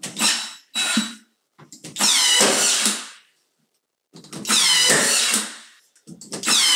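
Ryobi cordless nailer driving nails into baseboard trim: two short bursts in the first second, then three longer whirring shots of about a second each, each carrying a pitched whine.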